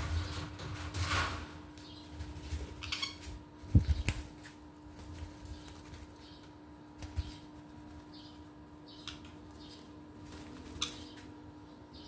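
Green-cheeked conures flapping their wings and shuffling on a wooden perch, with a thump about four seconds in and a few short high chirps scattered through.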